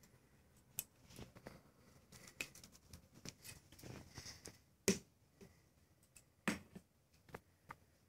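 Sphynx cats batting a hard plastic toy ball about: scattered light taps and knocks, with two sharper knocks about five and six and a half seconds in.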